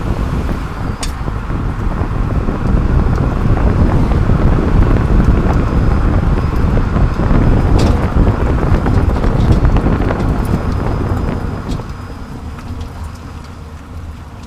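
Road and wind noise of a 30-series Toyota Prius being driven, heard from beneath the car: a steady rumble of tyres on the road with a few sharp clicks, getting quieter about twelve seconds in.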